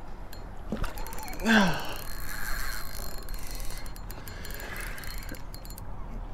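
Spinning fishing reel being cranked against a hooked fish, with runs of rapid clicks. A short grunt from the angler falls in pitch about one and a half seconds in.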